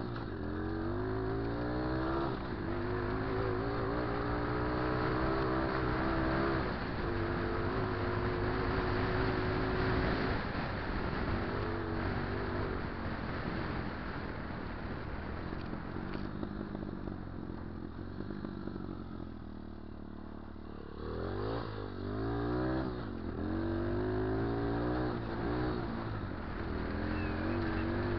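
125cc pit bike's single-cylinder engine accelerating hard through the gears, its pitch climbing and then dropping at each shift. About twenty seconds in it eases off, then revs back up in several quick climbs.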